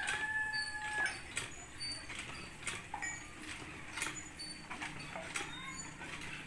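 A rooster's crow ends on a long held note about a second in. After it come scattered faint clicks and short, high chirps.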